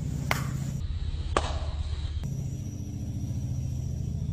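Background music with a low, steady pulsing bass line, broken by two short sharp hits, one right at the start and one about a second and a half in.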